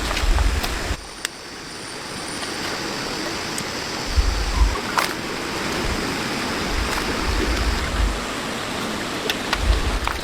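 Steady rushing noise outdoors, with low gusts of wind buffeting the microphone a few times and scattered faint clicks. The level drops suddenly about a second in, and a faint high whine runs through the middle.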